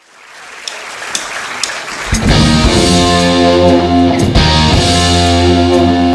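Rock band opening a show: a swelling wash of sound with a few sharp ticks about half a second apart. About two seconds in, the full band comes in loud with sustained electric guitar chords over bass and drums.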